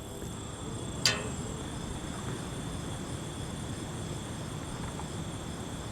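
Night insects such as crickets trilling steadily in high, even tones over a low background rumble, with one short sharp click about a second in.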